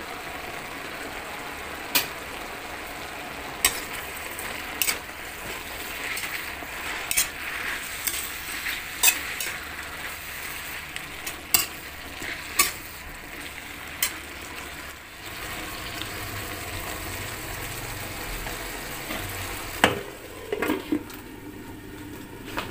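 Leafy greens sizzling as they are stir-fried in a metal wok, with the spatula clacking and scraping against the pan every second or two. Near the end there are a few louder knocks as the lid is set on the wok.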